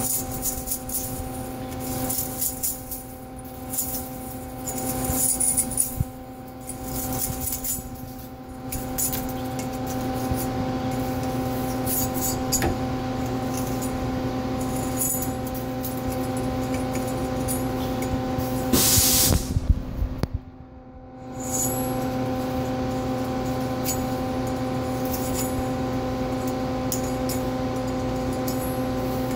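CNC lathe standing idle between cycles with a steady machine hum, while metal chips are pulled off the threaded part with a pick, giving intermittent scratching and rattling. About two-thirds of the way through there is a loud hiss lasting about a second, after which the hum briefly drops away.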